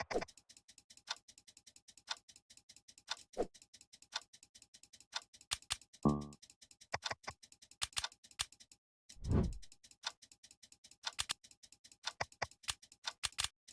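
Irregular ticking clicks, with a short buzzy tone about six seconds in and a brief whoosh about nine seconds in.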